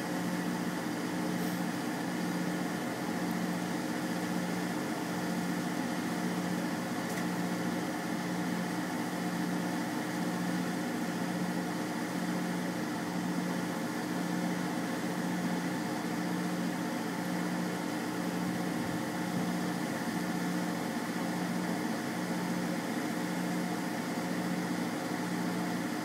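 A truck's engine idling, heard from inside the cab: a steady drone with a slow, even pulse.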